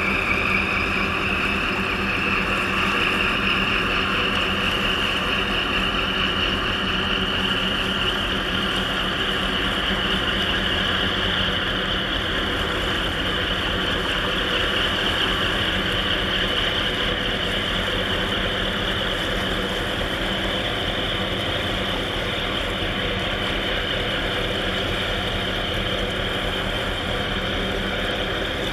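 Ship diesel engines of a harbour tug and container ship running steadily. There is a deep drone, and a high whine that rises in pitch over the first several seconds and then holds.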